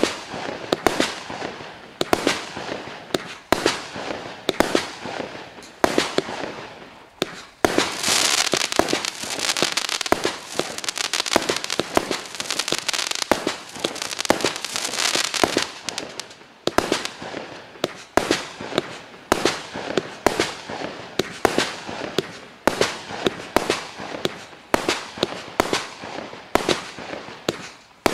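Klasek Šašek firework cake firing shot after shot, a rapid series of sharp bangs from the launches and breaks. For about eight seconds in the middle, from about 7.5 s in, a dense hiss fills the gaps between the bangs.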